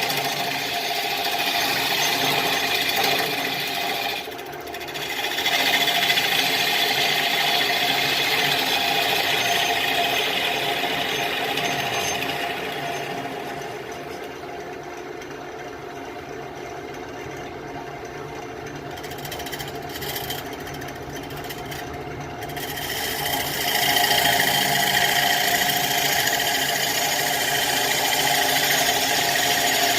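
Wood lathe running with a turning tool cutting into a Russian olive bowl blank: a steady motor hum under the scraping of the cut. The cutting eases off for several seconds in the middle, then is heavy again for the last few seconds.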